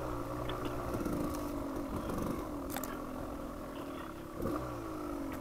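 Dual-sport motorcycle engine running at low trail speed, its pitch dipping and picking up again a few times with the throttle, with a few light clicks.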